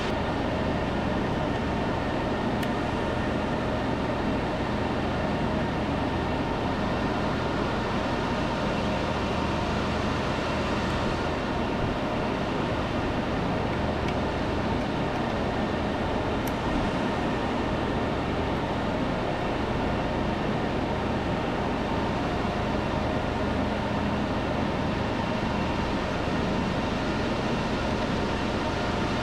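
Steady mechanical hum with an even rush of air noise, holding the same level and pitch throughout.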